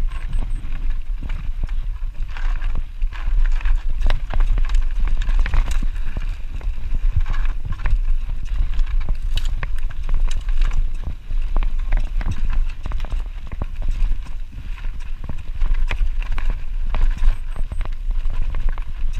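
Radon Slide 150 full-suspension mountain bike riding fast down a rough dirt trail: constant rattling and knocking of the bike and tyres over roots and stones, over a steady low rumble of wind on the microphone.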